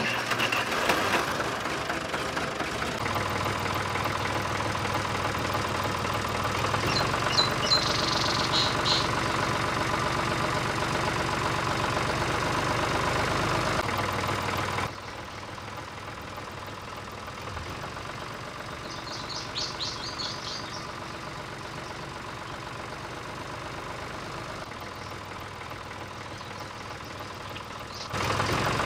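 Tractor engine sound, a steady rhythmic chugging idle, going with a remote-control toy tractor. It drops to a lower level about halfway through and comes back up near the end, and two brief patches of high chirping come in over it.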